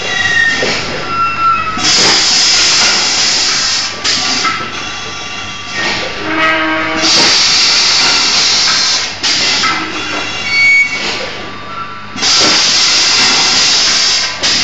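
Air-driven automatic cup filling and sealing machine cycling, with long hisses of compressed air about every five seconds over a steady hum.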